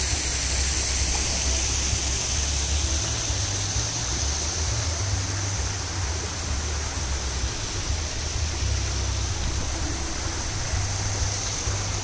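Steady rushing outdoor noise with an uneven low rumble underneath and no distinct events.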